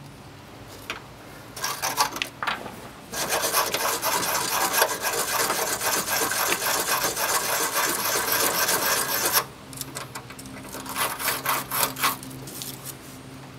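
Wire brush scrubbing corrosion off a car battery cable terminal. It starts with a few short strokes, runs as about six seconds of steady fast scraping, then stops and goes on in a few more short strokes.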